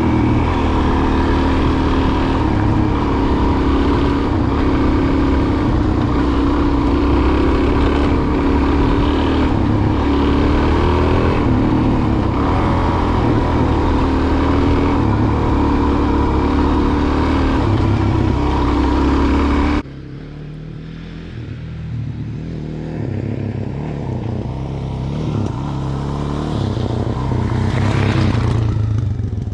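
Suzuki DRZ400's single-cylinder four-stroke engine running under way, with a steady hiss of wind and road noise over it. About two-thirds of the way in, the sound drops suddenly to a quieter, duller engine note, which then slowly grows louder.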